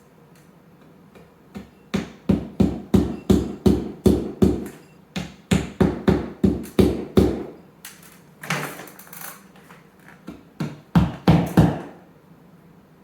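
Repeated hammer blows, about three a second, in several runs with short pauses, driving fixings for a curtain-rod bracket into the wall.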